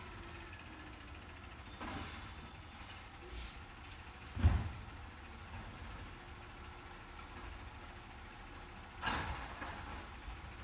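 Distant garbage truck working along a street: an air-brake hiss with a thin high squeal a couple of seconds in, a sharp loud thump about halfway through, and another short clatter near the end.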